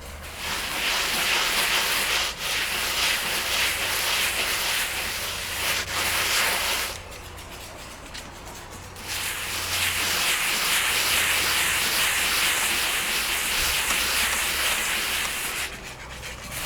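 Hand tool rubbing and scraping wet cement mortar on a wall corner, smoothing a patch that is not yet dry. It goes in two long spells of steady strokes, with a pause of about two seconds between them.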